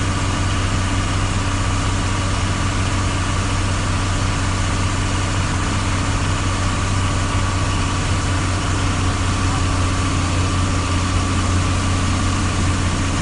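Vehicle engine running steadily as a constant low hum, heard from inside the cab while driving slowly.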